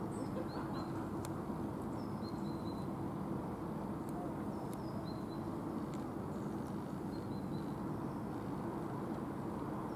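Steady low outdoor background rumble with faint, short bird chirps scattered through it and a few sharp clicks.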